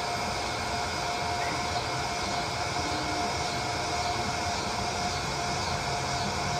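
Toy bubble machine's small fan motor running with a steady whine and hiss.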